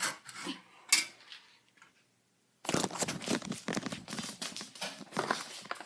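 Irregular scratching and rustling of something being handled, broken by a second or so of dead silence, then dense continuous scratching.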